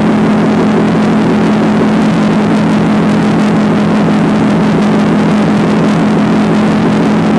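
Motorcycle engine running at a steady cruising speed, its drone holding one even pitch, with heavy wind rush over it.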